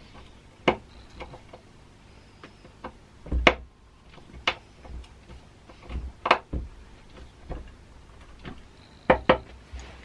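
Irregular clicks and knocks from a wooden door and its metal knob hardware being handled, about a dozen in all, with the loudest knocks a few seconds in and a quick pair near the end.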